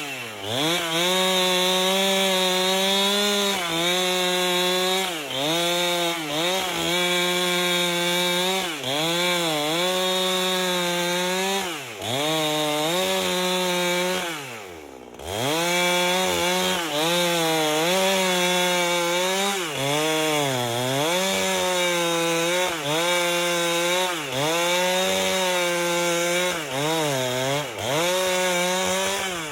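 Chainsaw with a 30-inch bar ripping an albasia log lengthwise. The engine runs at high revs and dips briefly every second or two as it bogs in the cut. About halfway through, the revs fall away almost to idle for a moment, then climb back up.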